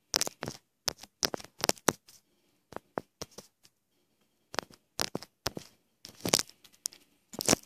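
Close handling noise: an irregular run of sharp clicks, taps and rustles from hands moving on and around a shotgun held right at the microphone, loudest a little after 6 seconds and near the end.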